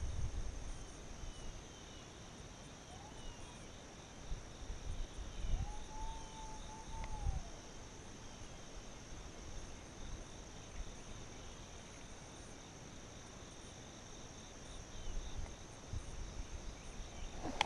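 Insects chirring in a steady, finely pulsing high drone. About six seconds in, one long drawn-out howl rises, holds and falls: a distant hound baying on a deer drive.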